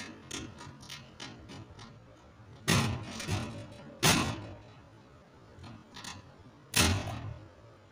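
A rat in a wire cage trap working at the corner bars with its teeth and head, making the metal cage clank and rattle: four loud sharp clanks, the first about three seconds in, with fainter clicks between.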